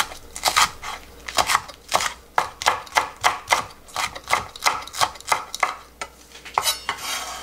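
Chef's knife chopping green Cheongyang chili peppers on a wooden cutting board: quick, even chops, about three to four a second, with a longer rasping stroke near the end.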